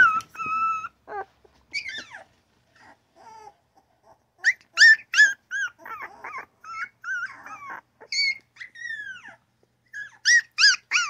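Newborn puppies whining and yipping in short high-pitched bursts, some calls falling in pitch. There is a quieter lull about three seconds in, and the loudest yips come around five seconds in and again near the end.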